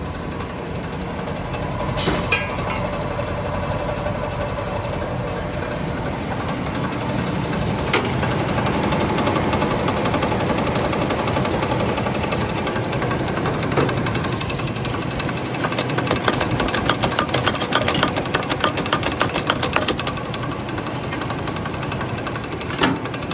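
Vehicle engine running steadily through its exhaust, which has just had a leak repaired. A fast, even rattling pulse grows stronger in the second half, with a few sharp knocks along the way.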